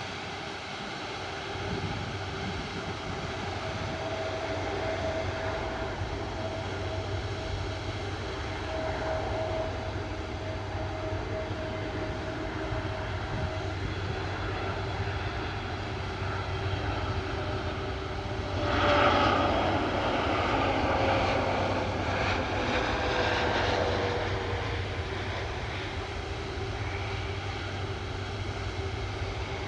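Airbus A330-300 jet engines running: a steady hum with a few held whining tones, one sliding slowly lower. A louder rush swells in about two-thirds of the way through and fades over several seconds.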